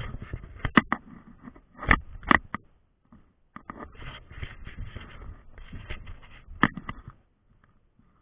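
Close handling noise: hands rustling and scraping over a mesh bag, with a few sharp clicks and knocks. It stops about seven seconds in.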